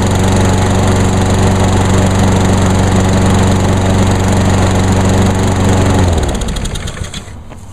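Honda GCV160 lawn mower engine running steadily at governed speed, then shut off about six seconds in, its pitch sliding down as it spins to a stop.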